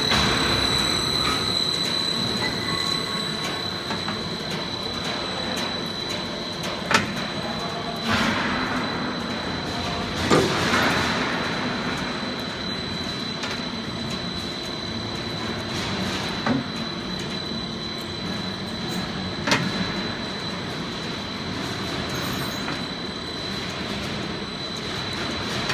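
Heavy-gauge purlin roll forming machine running, its roller stations and roller-chain drive turning with a steady mechanical running noise and a constant high whine above it. Five sharp metallic clanks are spread through it.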